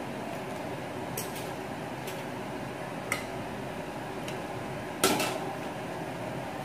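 Metal tongs clinking against the air fryer basket and a plate as pieces of fried pork belly are lifted out, a few scattered light clicks. About five seconds in there is one louder clack with a short ring as the tongs are set down on the basket rim.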